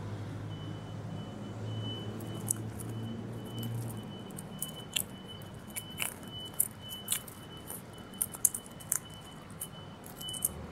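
A plastic cat toy ball with a feathered mouse attached clicks and rattles in quick, irregular taps as a kitten bats and grabs it on asphalt. A low hum is heard in the first few seconds.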